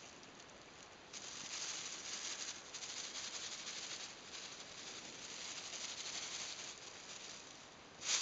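Thin white plastic carrier bag rustling and crinkling as it is swung about and batted at by a cat. The rustling starts about a second in and ends with a louder, sharper rustle.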